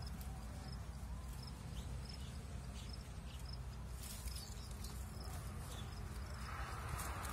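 Steady low rumble on the microphone with faint, short bird chirps repeating in the background. Near the end a soft rustling scrape comes in as hands and a small blade work a mango twig among its leaves.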